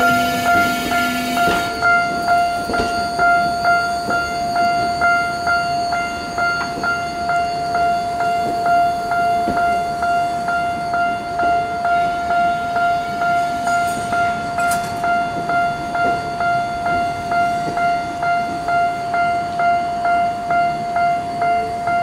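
Railroad crossing's electronic warning bell ringing in a steady, evenly repeating beat. For the first second or two the last cars of a Tokyo Metro Ginza Line 1000-series train run over the crossing with a rushing wheel noise. There is one brief click about halfway through.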